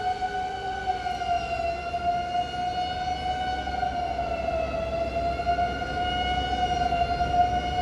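Japanese fire engine siren wailing at a nearly steady high pitch, wavering slowly up and down, over a low rumble. A second, lower siren tone slides down and fades out about a second in.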